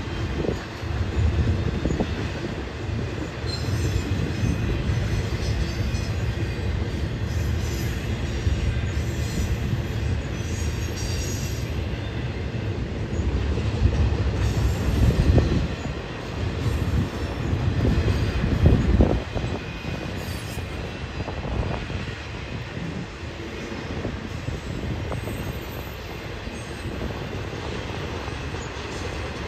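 Freight train rolling past: a steady rumble and clatter of the cars on the rails, with some wheel squeal. It swells louder about 15 and 19 seconds in.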